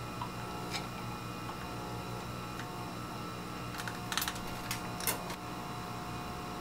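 Steady hum of a biosafety cabinet's blower. A single click comes about a second in, then a quick run of sharp clicks and taps about four to five seconds in, from handling the plastic pipette, electric pipette controller and tube.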